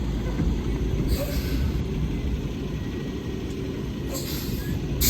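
Truck engine running with a steady low rumble, with short hisses about a second in and again about four seconds in.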